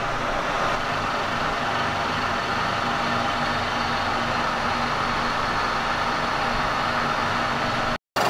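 Kearney & Trecker horizontal milling machine running, its arbor turning a helical roughing slab mill at about 115 RPM, with a steady hum. The sound drops out for a moment near the end.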